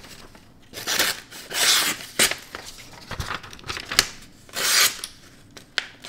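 A folding knife's full-flat-ground Magnacut blade slicing through a sheet of paper: three slicing passes, with a few short sharp ticks between them.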